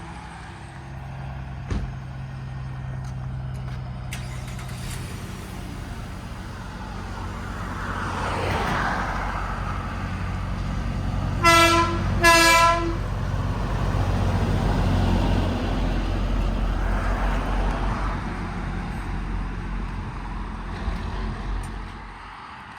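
Road traffic with trucks driving past, their engines and tyres swelling and fading. In the middle, a vehicle horn gives two short toots about a second apart, each a single steady note.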